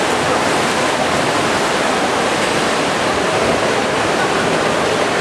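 Steady, even din of an indoor swimming pool hall: water splashing and a murmur of voices blending into one echoing wash of noise.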